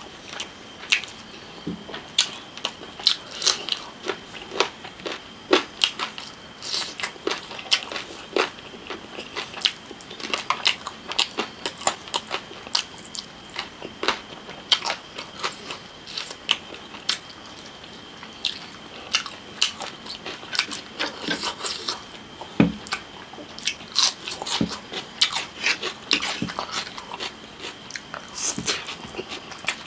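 Close-miked eating: biting and chewing meat off a roasted chicken leg, with many sharp, irregular wet clicks and crunches. Near the end a forkful of spicy noodles is eaten.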